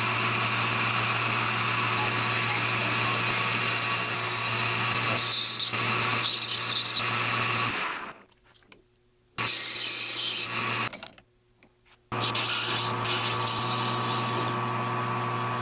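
Metal lathe running while drilling and turning a part of aluminum bronze: a steady motor hum with the noise of the tool cutting. The sound stops twice for about a second each, a little past the middle.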